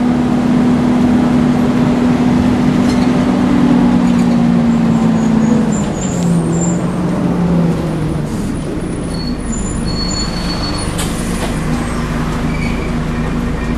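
Volvo Wright Renown bus running, a loud steady drone that drops in pitch about six seconds in, with short high-pitched squeals scattered through the middle.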